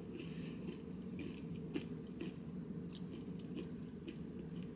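A person chewing a mouthful of acai bowl with granola, with soft crunching and a few faint clicks, over a steady low hum.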